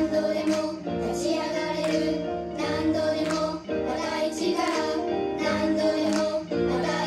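Pop song sung by a dance and vocal group: high voices singing held notes over an instrumental track with a beat.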